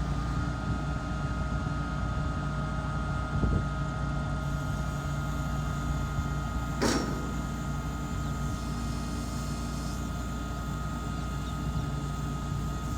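Motor grader's diesel engine running steadily while working, with a steady high whine over it. There is a short knock about three and a half seconds in and a sharp crack about seven seconds in.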